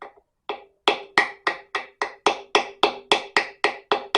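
Hammer strikes driving a Welsh (core) plug into an engine block, with a socket held on the plug as a drift: a steady run of sharp metallic blows, about three or four a second, each with a short ring.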